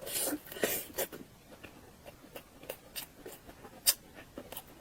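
Close-miked eating of a chicken leg: a burst of biting and chewing noise in the first second or so, then scattered sharp mouth clicks and smacks.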